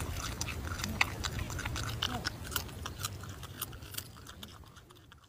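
A marmot biting and chewing a crisp cucumber: quick, irregular crunching clicks, fading out near the end.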